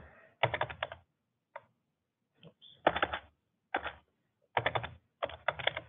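Computer keyboard typing: short bursts of a few quick keystrokes with pauses in between, as a date is entered into a form field.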